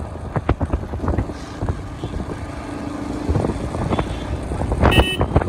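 Motorcycle riding along at speed: the engine runs under heavy wind buffeting on the microphone and road rumble. A short sharp high beep sounds near the end.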